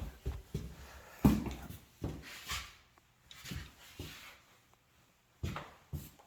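Irregular knocks and thumps from flooring work, about eight over a few seconds with the sharpest one about a second in, as tongue-and-groove floorboards are handled and set into place.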